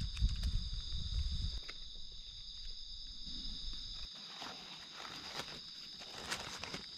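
A steady high-pitched chorus of night insects, with dry leaf litter rustling and crackling as mushrooms are cut and pulled up by hand. Low handling knocks come in the first second or so.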